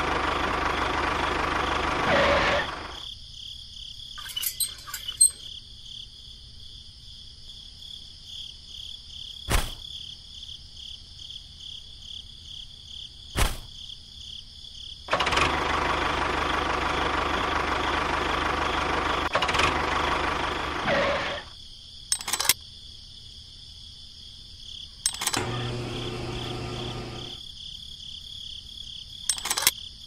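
Tractor engine sound running in two stretches, for the first few seconds and again for about six seconds past the middle. In between it is quieter, with a faint steady high whine and a few sharp clicks and knocks.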